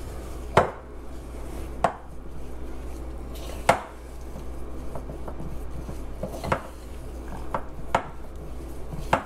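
A spatula folding and mashing stiff cookie dough in a glass mixing bowl, knocking sharply against the glass about seven times at irregular intervals. A steady low hum runs underneath.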